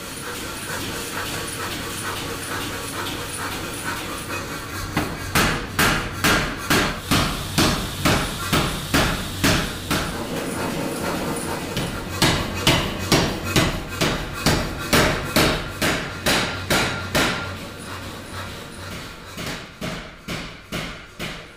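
Power hammer striking a hot mosaic damascus billet in a steady run of blows, about two a second, starting a few seconds in over a steady running noise. The blows pause briefly about halfway and come lighter near the end.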